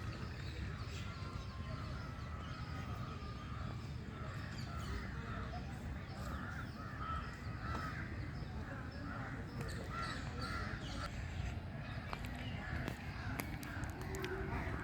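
Birds calling over and over with short, harsh calls, several at once, above a steady low rumble.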